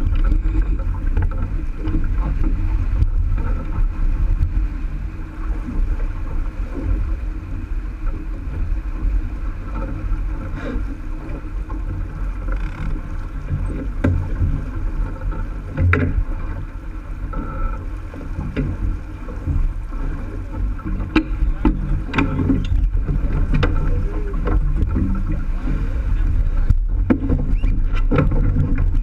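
A J/24 sailboat under sail: water rushing and splashing along the hull with a steady low rush of wind on the microphone, and a few sharp knocks scattered through it.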